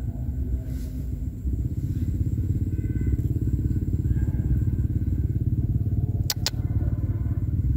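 A small engine running steadily in the background, a low rumble, with two sharp clicks about six seconds in.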